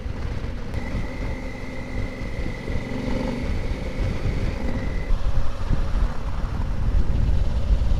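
Honda Africa Twin motorcycle being ridden along at a steady pace, a continuous low engine and road rumble. A thin steady high tone runs over it for about four seconds near the start.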